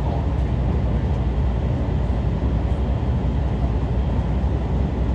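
Running noise of a local electric train heard from inside the passenger cabin: a steady low rumble of the wheels and motors while the train moves along at speed.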